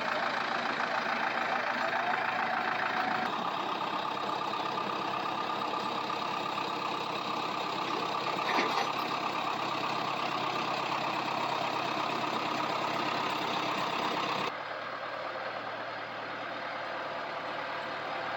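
An engine running steadily, with one short click about nine seconds in. The sound changes abruptly twice, about three seconds in and near the end, as if separate clips were joined.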